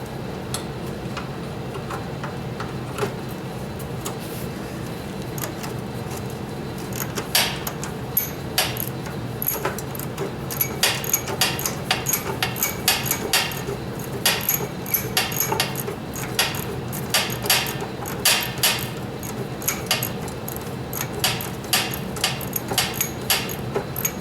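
Hand tools and loose metal parts clinking and knocking in irregular sharp strikes, several a second, starting about seven seconds in, as bolts are worked out during a teardown. A steady low hum runs underneath.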